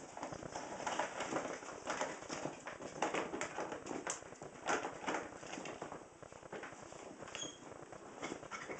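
Ferret digging and burrowing into snow in a plastic tote: irregular crunching and scraping of the snow in quick, uneven strokes.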